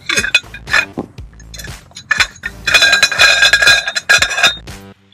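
Stainless steel dorade cowl and its metal deck ring clinking and knocking together as they are handled, with a stretch of metallic ringing a little under three seconds in.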